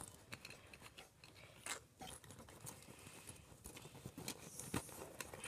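Faint rustling and light clicks of small plastic doll accessories being handled and put back into a doll's bag.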